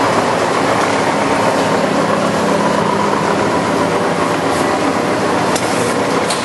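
Lodge & Shipley Power Turn tool room lathe running under power, its spindle turning at about 77 RPM: a steady mechanical running noise from the gearhead and drive, with a couple of light clicks near the end.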